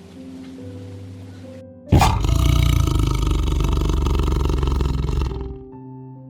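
An animal's loud roar, starting suddenly about two seconds in and lasting about three and a half seconds, over soft background music.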